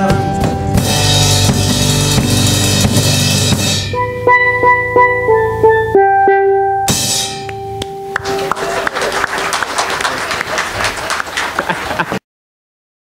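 Church praise band's closing flourish: a loud drum and cymbal roll, then a run of short steel drum notes, and a final cymbal crash that rings on. The sound cuts off abruptly near the end.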